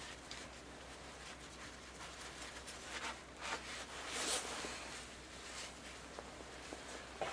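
Paper towel rubbing and rustling as it wipes thinned, oozing grease off a grease gun's head, with the nylon work jacket brushing along. The handling noise swells about three to four seconds in, and there is a small click near the end, over a low steady hum.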